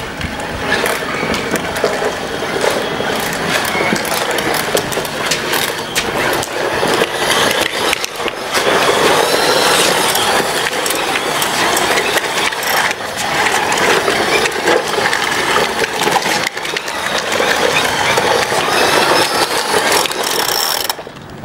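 Hard plastic toy truck wheels rolling and rattling over rough concrete, a continuous gritty rumble full of small clicks and knocks.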